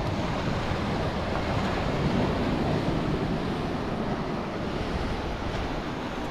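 Surf washing steadily onto a sandy beach, with wind buffeting the microphone.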